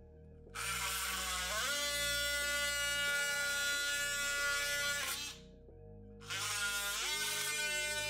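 Cordless rotary tool with its bit grinding down the raised reflector rings on a plastic tail light lens: a steady, high motor whine that starts about half a second in and rises in pitch as it spins up. It stops for about a second near the five-second mark, then starts again.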